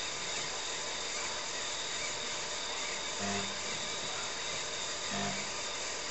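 Steady whirr of a TRS-80 Model 16B and its 8-inch floppy drive at work while utility programs are copied to the hard disk, with two short low buzzes about three and five seconds in.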